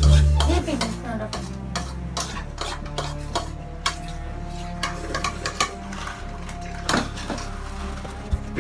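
Metal forks clinking and scraping against noodle bowls as several people eat quickly, with many short clicks throughout. A loud low thump comes right at the start.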